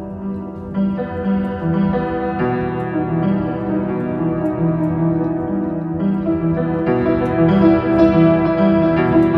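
Slow piano music: sustained notes ring on and overlap, with a new note or chord entering every second or two.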